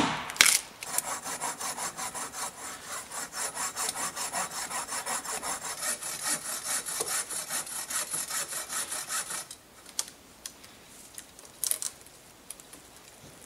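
One axe strike into a tree trunk, then a bow saw cutting back and forth through the standing trunk in steady, quick strokes for about eight seconds. The sawing stops about two-thirds of the way in, leaving only a few faint knocks.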